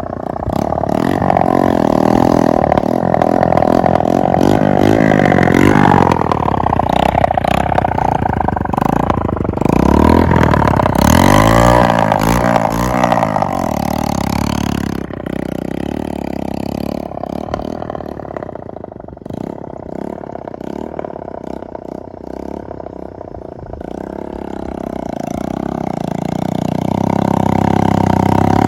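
Motorcycle engine running with its silencer removed, open exhaust, revved up and down: the revs rise and fall around five seconds in and again around ten to thirteen seconds, then climb steadily near the end. With the silencer off it sounds just like a Royal Enfield Bullet.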